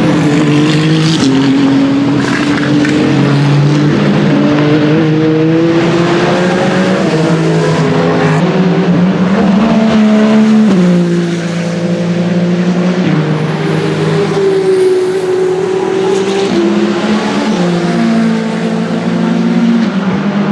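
Several endurance race cars running past at speed, their engine notes overlapping, rising and stepping with gear changes, with a drop in pitch and loudness about halfway through.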